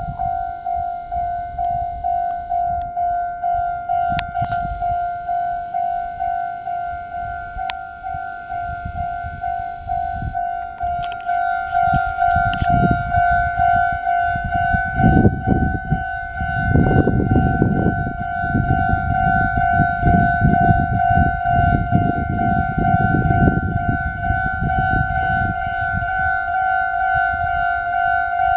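Japanese railway level crossing's electronic warning bell ringing steadily at about two strokes a second. From about halfway through, a train approaches and passes over the crossing, its wheels rumbling and clattering rhythmically under the bell before easing off near the end.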